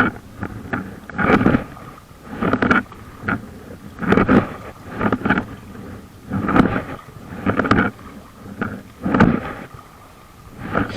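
Packraft paddle strokes swishing and splashing through the water in a steady rhythm, about one stroke every second or so.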